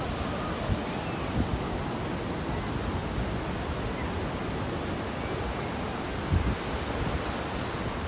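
Surf washing steadily onto a sandy beach, with wind buffeting the microphone now and then, most strongly about six seconds in.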